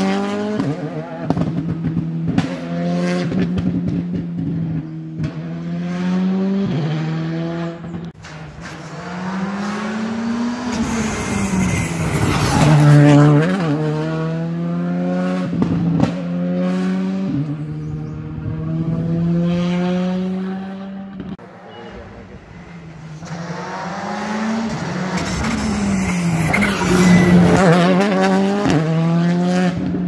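Rally car engine on a closed road stage, revving hard and climbing in pitch through the gears, then dropping off for corners, over and over, with some tyre squeal.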